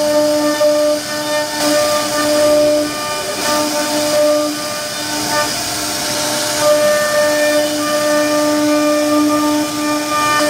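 CNC router spindle carving a relief design into a wooden door panel: a steady high whine over the hiss of the bit cutting wood, the whine fading briefly a few times as the tool moves.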